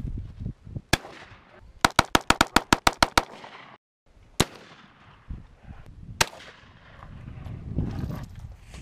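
Gunshots at an outdoor range: one shot, then a rapid string of about ten shots in just over a second, then single shots a couple of seconds apart, the last at the very end.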